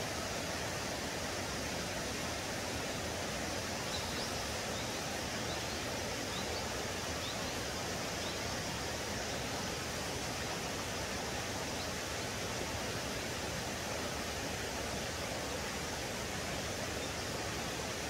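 Steady rushing of a mountain stream, an even wash of water noise. A few faint, short high chirps come through about four to eight seconds in.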